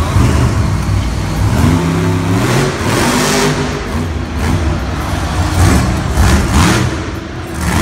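Monster truck's supercharged V8 revving hard in repeated bursts as it rears up into a wheelie, its pitch climbing about two seconds in.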